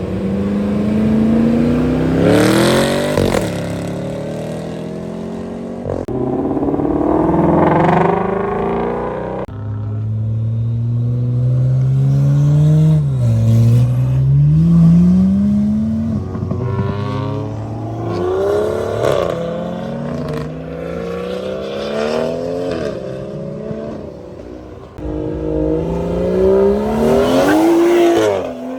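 Car engines revving and accelerating hard, one after another. Each pull climbs steeply in pitch before it drops away, about five or six times over.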